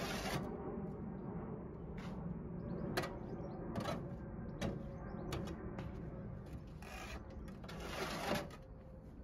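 A metal hand scoop digging into and scraping compost in a plastic wheelbarrow: a run of irregular scrapes and knocks, with two longer scrapes near the end.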